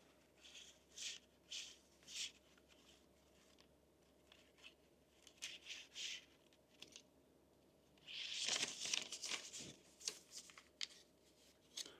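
Faint rustling and handling noises: a string of short scrapes, with a longer rustle about eight seconds in.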